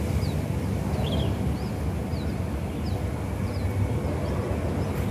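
Outdoor background rumble, steady and low, with a small bird chirping repeatedly over it, about once or twice a second.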